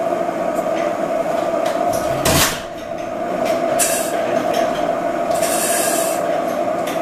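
A steady whistling hiss of gas at the flare pipe and piping of a Pattin Brothers oilfield engine. Short louder rushes of hiss come about two, four and five and a half seconds in.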